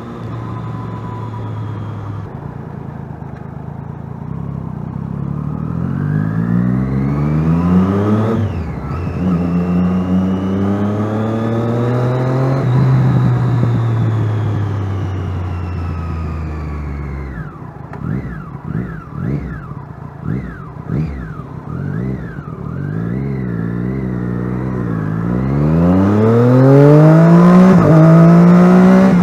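Triumph Daytona 675R's 675 cc inline-three engine accelerating through the gears, its revs climbing with a gear change about eight seconds in, then falling away as the rider eases off. A run of short, quick rev rises and falls follows, about one a second, before the engine pulls hard again, loudest near the end.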